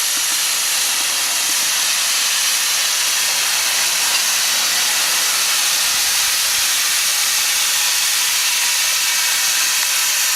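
Welsh Highland Railway narrow-gauge steam locomotive hissing steam steadily as it draws up close by.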